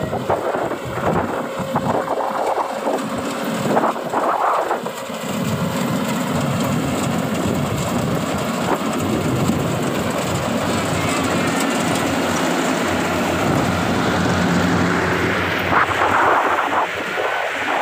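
Tracked rice combine harvester running in the paddy, a loud steady rumbling noise, with brief louder patches about 4 seconds in and near the end.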